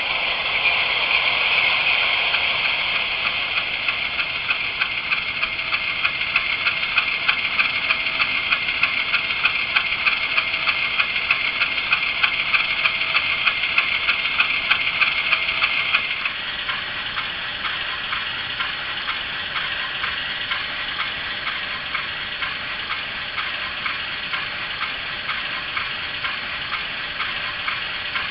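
ESU LokSound decoder's recorded GE U28C diesel engine sound played through an HO scale model's small speaker, with no bass. It runs with a quick, even beat and drops sharply to a quieter running level about sixteen seconds in.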